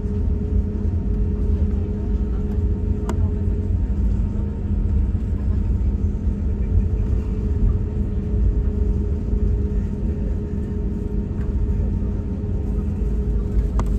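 Steady low engine rumble with a constant droning hum and two brief ticks.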